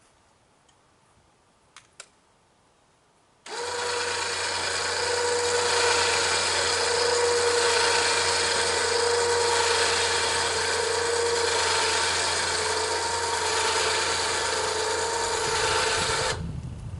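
A log-milling saw running steadily through a cut: a loud, dense mechanical sound with a steady whine in it. It comes in suddenly a few seconds in, after near quiet with two faint clicks, and stops suddenly near the end.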